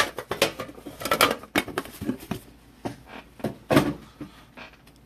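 Irregular clicks, taps and light knocks of a trading-card box and its packaging being handled and opened by hand, with one louder knock about three-quarters of the way through.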